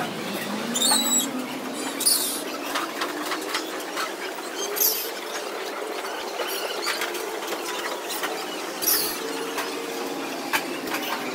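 Ambience of crowded goat pens: faint, wavering goat bleats under sharp, high-pitched squeals that come about four times, roughly 1, 2, 5 and 9 seconds in.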